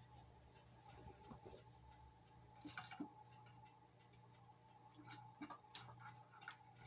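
Near silence over a steady faint electrical hum, broken by a few small, scattered clicks and taps of small tools and parts being handled, around three seconds in and again between five and six seconds in.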